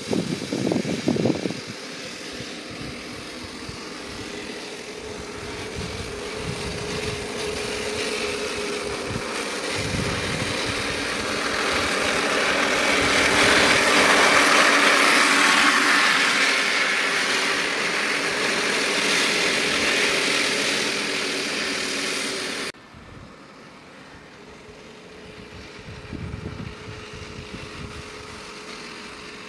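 3D-printed radio-controlled model T-34 tank running through tall grass, a steady motorised drone that grows louder as the tank comes close, then drops abruptly to a quieter, more distant level about two-thirds of the way through.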